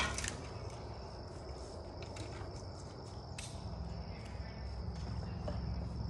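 Outdoor ambience: a steady high insect buzz, with a low rumble underneath that grows a little louder in the second half and a couple of faint knocks.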